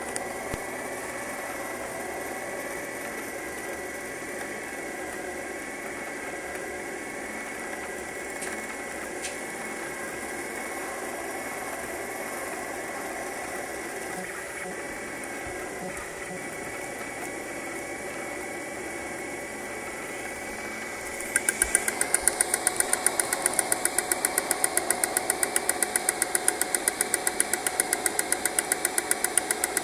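FDM 3D printer running a print: a steady machine hum of fans and stepper motors with a thin steady whine. About 21 s in it changes to a louder, fast, even ticking of about four ticks a second.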